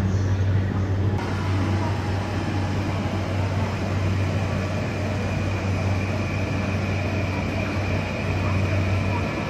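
Steady running noise heard inside a moving train carriage, with a constant low hum under it. A thin high tone joins about six seconds in.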